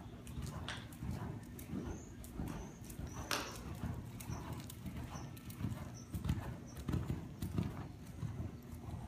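Horse cantering on soft arena footing under a rider: muffled hoofbeats in a steady stride rhythm, about one stride every two-thirds of a second, with sharp clicks over the top.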